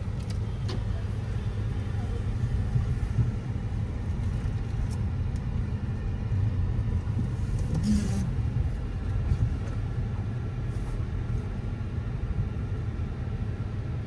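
Steady low rumble of motor-vehicle traffic.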